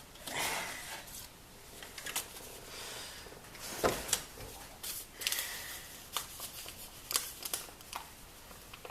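Hands rustling and handling small objects: irregular crinkling, scraping and light taps, with no vacuum running.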